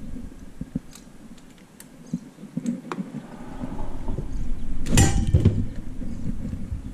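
Handling noise from working on a robot's wheel hub: scattered small clicks of metal parts, with a louder scrape and clunk about five seconds in.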